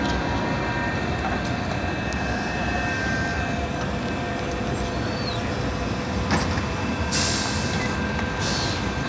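Steady city traffic rumble with a Belkommunmash trolleybus standing close by with its doors open. About seven seconds in there are two short hisses of compressed air from its pneumatic system.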